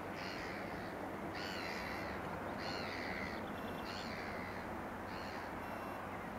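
A crow cawing five times in a steady series, about one harsh, falling caw every second and a bit, over a steady low background rumble.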